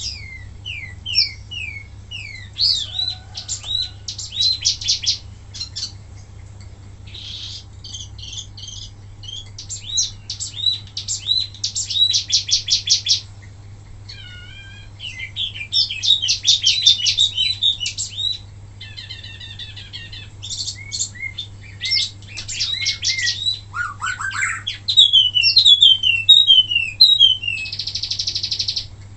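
A wambi mini songbird singing a varied, energetic song: rapid runs of sharp chirps, falling slurred whistles and trills in bursts separated by short pauses. This is a 'tembakan' song of the kind used as a masteran recording for teaching other birds.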